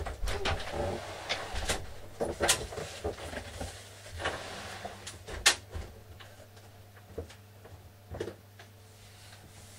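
Knocks, bumps and clatter of someone moving about and handling things, with a door or cupboard among them. A busy run of knocks fills the first six seconds, the sharpest about five and a half seconds in, then a few fainter knocks follow. A steady low hum sits underneath throughout.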